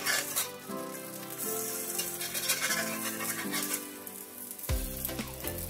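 Omelette sizzling in hot grease in a Lodge 10.5-inch cast iron griddle, with a metal spatula working under its edge. Background music plays along, and a bass line comes in near the end.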